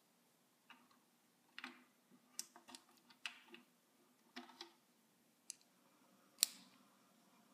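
Small steel screwdriver bits clicking against a plastic bit case and snapping into the magnetic chuck of a precision screwdriver handle: a scattering of light, sharp clicks, the loudest about six seconds in.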